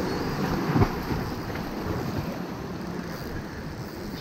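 Small waves washing and splashing against the rocks of a jetty, with wind buffeting the microphone. There is a short, louder thump a little under a second in.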